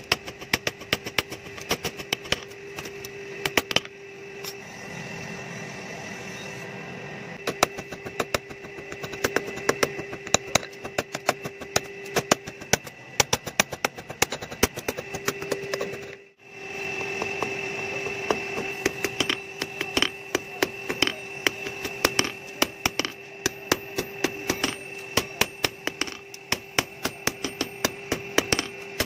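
Hand hammer striking a hot steel sickle blade on a block anvil in quick repeated blows, forging its curve and edge. A steady hum from the forge's electric blower runs underneath. Everything drops out briefly about halfway through.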